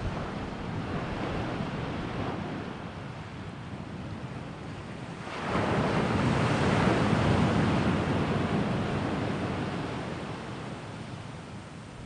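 Sea waves washing onto the shore: a bigger wave breaks suddenly about five seconds in, then its wash fades away.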